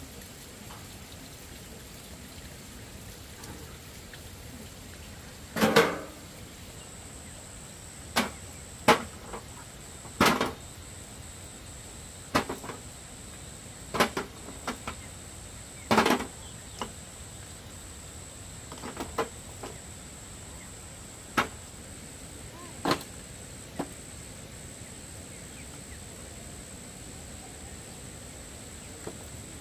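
A series of separate knocks and thuds, about a dozen, spaced irregularly one to three seconds apart. A faint steady high-pitched tone sets in about a quarter of the way through.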